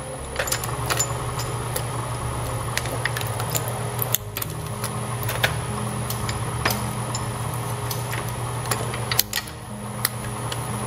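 Twin-shaft shredder running steadily while its cutters grind a hard plastic robotic toy frog, with sharp cracks and snaps of breaking plastic every second or so.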